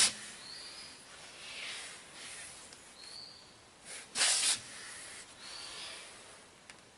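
Two short bursts of hissing air, about four seconds apart, with soft breaths close to the microphone in between.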